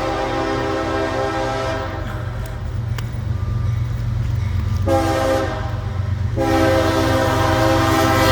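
Locomotive air horn sounding a crossing signal: a long chord that stops about two seconds in, a short blast around five seconds, then another long blast from about six and a half seconds on. A steady low rumble from the locomotive runs underneath.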